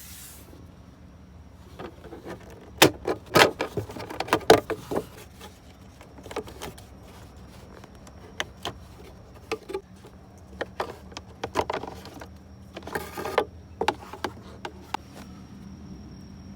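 Hands working the plastic interior parts of a car for a cabin air filter change: a series of sharp plastic clicks, knocks and rattles, busiest about three to four and a half seconds in, with a short scraping rustle later on.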